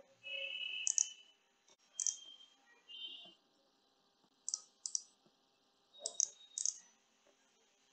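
Computer mouse button clicking about six times, sharp and short, some in pairs, as wire segments are placed.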